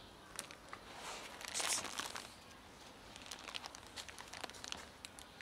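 A plastic bag of dry cat food crinkling as kibble is poured out onto stone paving, loudest about a second and a half in, followed by a run of small scattered clicks.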